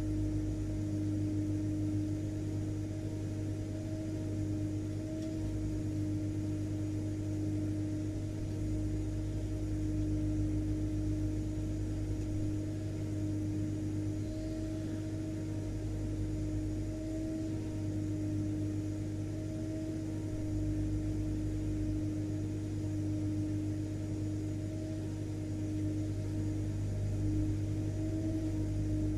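Vacuum cleaner motor running steadily, a constant drone with a pitched hum and low rumble.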